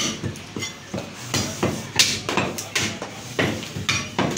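Butcher's cleaver chopping mutton on a wooden stump block: a run of about eight sharp chops, unevenly spaced.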